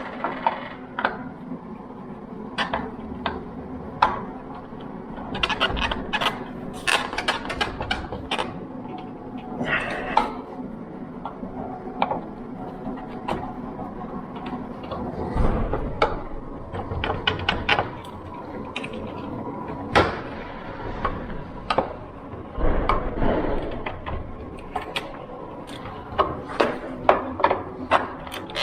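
Irregular metallic clicks and knocks of a hinge-bending tool being fitted and worked on a fire door's hinges, with a couple of heavier thumps partway through.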